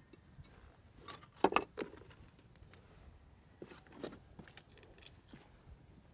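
Footsteps on rocky ground: a few scattered scuffs and scrapes of shoes on stone, the loudest about one and a half seconds in.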